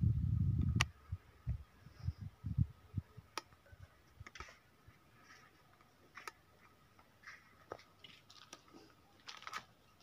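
Camera handling and footsteps on rock: a low buffeting rumble in the first second, then scattered light clicks and short scrapes, with a crunchy scrape near the end. A faint steady high tone sits underneath.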